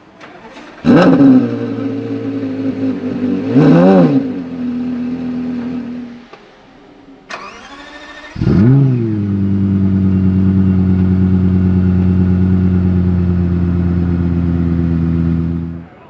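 Two V10 supercar engines starting, one after the other. First a Porsche Carrera GT's 5.7-litre V10 fires with a flare about a second in, idles and takes one quick rev blip. Then a Lexus LFA's 4.8-litre V10 cranks with a rising starter whine, catches with a flare and settles into a steady idle.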